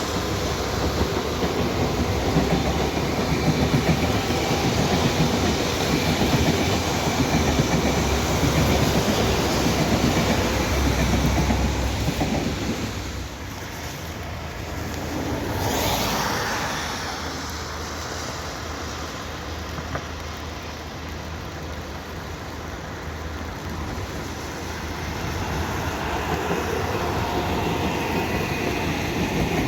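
A train running past on the track, its wheels clattering over the rail joints. The noise drops about halfway through, swells briefly, then builds again near the end.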